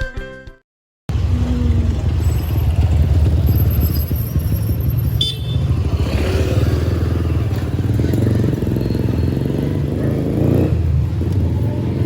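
Steady motor-vehicle rumble with street traffic noise, including motorcycle engines, starting about a second in after intro music cuts off.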